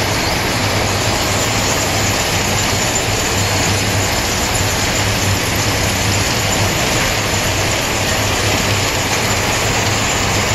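A 36-spindle hank-to-cone yarn winding machine running: a steady mechanical whirr and clatter of spindles, winding drums and turning hank swifts over a low hum.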